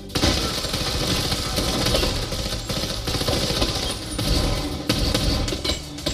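Dense, loud action-soundtrack effects, a low engine-like rumble with rapid crackling hits, played back through Klipsch The Nines bookshelf speakers. The sound starts abruptly and stays loud and busy throughout.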